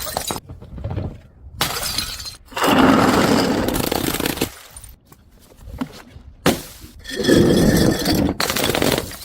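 Glass bottles smashing, one crash after another: several loud shattering crashes, some drawn out for a second or two as the glass breaks up, each starting and cutting off abruptly.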